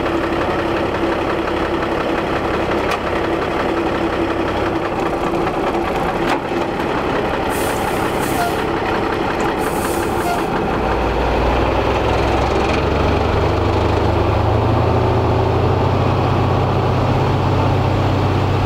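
Heavy water-tanker truck engine idling steadily. About ten seconds in, a deeper low rumble comes in and grows stronger.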